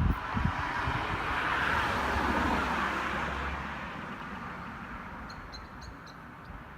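A car passing on a nearby road: its tyre and engine noise swells to a peak about two seconds in and slowly fades away. A few short bird chirps come near the end.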